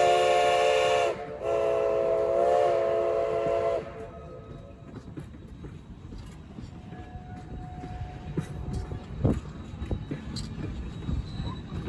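Steam locomotive chime whistle blowing a short blast and then a longer one with a slight waver in pitch, cut off about four seconds in. Then the train rolling past with a low rumble and scattered clicks and knocks of wheels on the rails.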